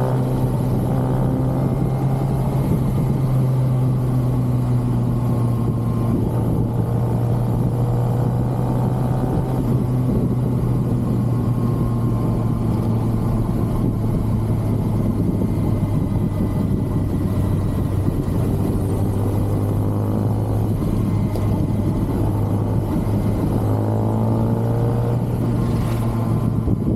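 2023 Kawasaki ZX-6R inline-four sport bike engine running through its stock exhaust while riding, holding a steady note, with the pitch sliding as the revs change near the start and again near the end.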